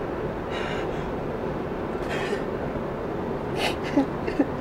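A person taking a few sharp, breathy breaths over a steady background hiss. Near the end, short halting voice sounds begin, about three to four a second, in the manner of sobbing.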